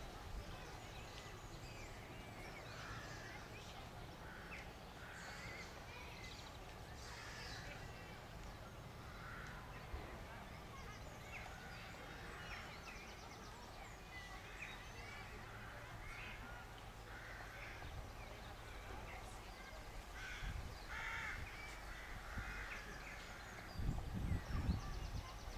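Birds calling in the open, with crow-like caws among short scattered chirps, over a steady low rumble. A few louder low bumps come near the end.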